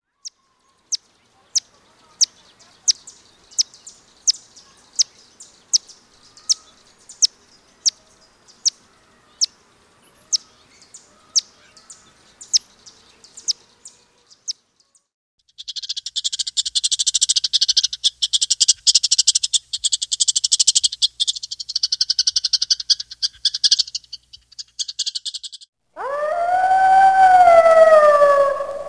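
Sharp, high chip notes from a hummingbird, about one and a half a second, through the first half. After a short pause, a dense high buzzing trill runs for about ten seconds. About two seconds before the end a grey wolf howls: one long call that rises slightly, then falls.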